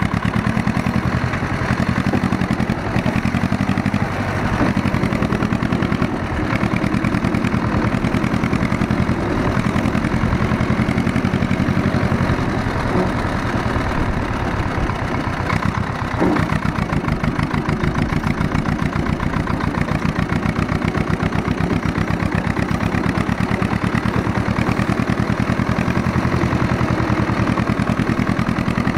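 Ursus C-330 tractor's two-cylinder diesel engine running steadily as the tractor is driven, its firing beats even and unbroken.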